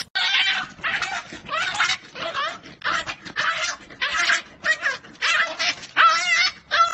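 Puppy yipping and whimpering over and over as a rabbit pounces on it, a quick series of high, wavering calls about two a second.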